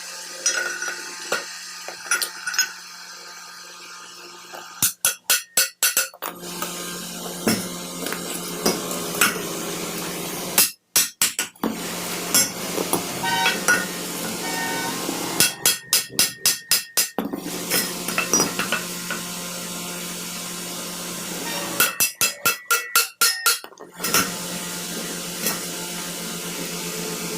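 Hammer blows on metal in three quick bursts of several strikes each, with scattered single clinks of metal parts between them, over a steady low hum.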